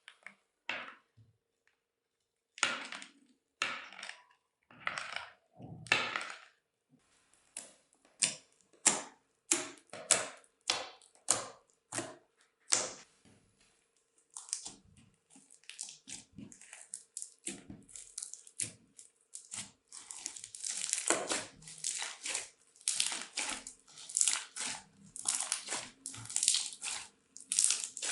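Crunchy bead-filled slime being squeezed and kneaded by hand, giving a crackling crunch with each squeeze. The squeezes come about once a second, then grow quicker and louder in the last third.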